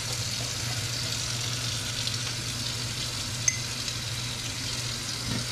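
Steady kitchen hiss of a tap running into a stainless sink, mixed with potatoes frying in oil in a pan, over a low steady hum. One short clink about three and a half seconds in.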